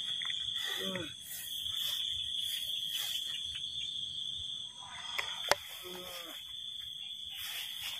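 A steady high-pitched drone runs throughout. Short vocal groans come about a second in and again about six seconds in, with a sharp click just before the second.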